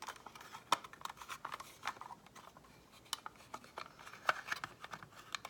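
Faint, irregular small clicks and taps of fingers working at a plastic smoke detector, trying to pry it open, with a few sharper clicks among them.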